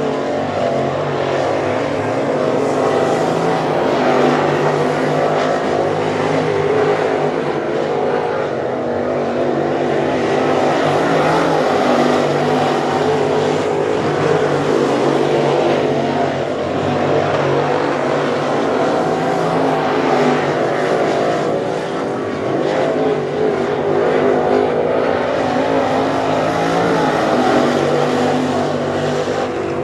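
Dirt late model race cars with crate V8 engines running laps around a dirt oval, heard from the grandstands as a continuous engine drone that swells and eases slightly as the cars circle.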